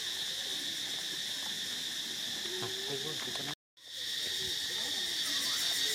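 Steady high-pitched drone of insects, with a brief total dropout about three and a half seconds in, after which the drone returns a little louder.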